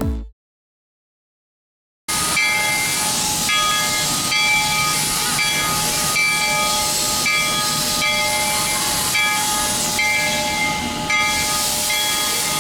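Steam locomotive pulling in, hissing steam loudly, with steady whistling tones over the hiss that come and go. The hiss starts suddenly about two seconds in, after a short silence.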